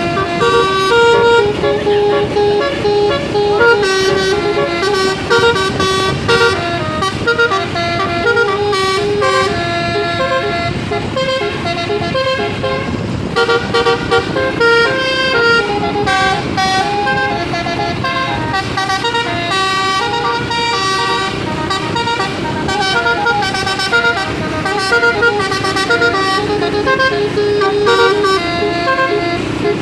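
Indonesian bus 'basuri' telolet horns playing a loud, continuous tune. The notes step from one pitch to the next, with several tones sounding at once and no break.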